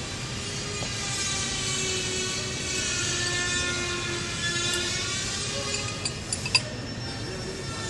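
A steady machine drone whose pitch wavers slowly up and down, with a few short metallic clicks near the end.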